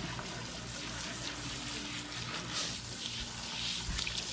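Water spraying steadily from a garden hose's pistol-grip spray nozzle onto a small dog's fur while it is rinsed, splashing on a wet turf mat.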